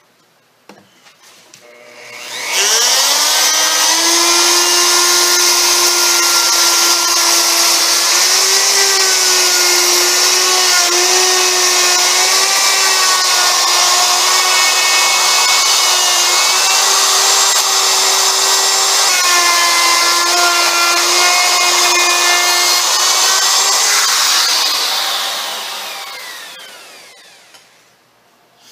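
Electric plunge router with a 3/8-inch rabbet bit switched on about two seconds in, spinning up to a steady high whine and cutting a rabbet into a wooden chair seat frame, its pitch dipping slightly a few times as it cuts. Near the end it is switched off and winds down over a few seconds.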